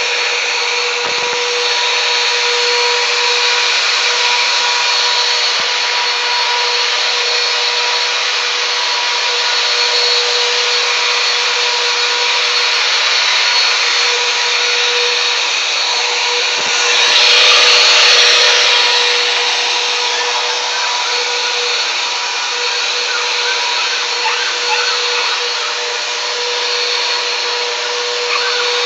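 Vacuum cleaner running steadily, a constant whining hum that grows louder for a couple of seconds just past the middle.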